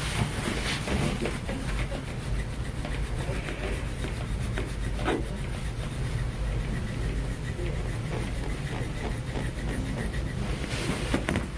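Stainless-steel Graston instrument scraping over the skin at the ankle in quick, repeated rubbing strokes, breaking up post-surgical scar tissue.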